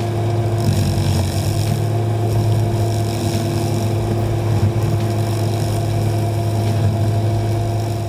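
Heavy vehicle engine running steadily at a constant pitch, with a strong low hum.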